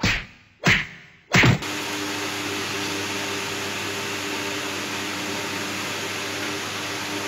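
Three booming hits, one roughly every two-thirds of a second, each dying away. Then a steady machine whirr with a low hum runs on in the room.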